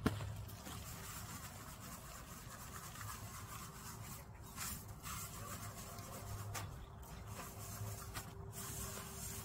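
Dry perilla seeds and chaff rustling and rasping in a plastic sieve as they are sifted by hand, a continuous dry scratching.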